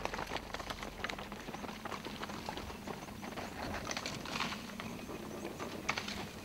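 Hooves of a gemsbok running on dry, sandy ground: a quick, irregular run of knocks and clicks.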